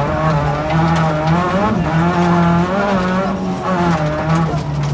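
Rally car engine revving hard under load on a dirt stage, its pitch climbing and dropping in steps as the driver changes gear and lifts off for corners.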